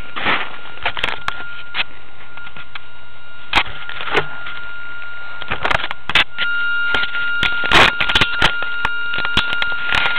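Thin, steady electronic whine and scattered clicks and knocks picked up by the RC jet's onboard camera, with the electric motor stopped. About six seconds in the whine grows stronger and a couple of higher tones join it.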